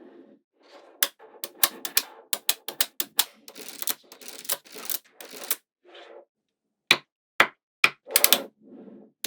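Small magnetic balls clicking together as they are snapped into place by hand. A quick run of sharp clicks gives way to a longer rattle, then a few separate loud clicks near the end.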